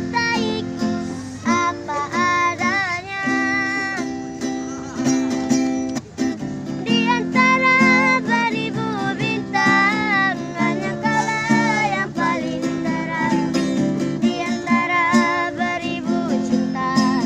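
A child singing a melody with wavering, ornamented notes, over steady strummed acoustic guitar chords.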